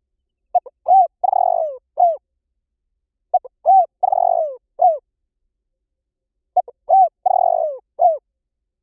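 Spotted dove cooing: three repeated call phrases about three seconds apart, each a couple of short coos, a longer rolling coo that falls in pitch and a final short coo.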